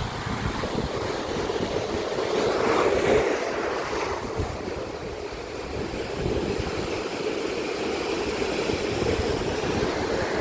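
Ocean surf washing in against the shore, with wind buffeting the microphone; the wash swells louder about three seconds in.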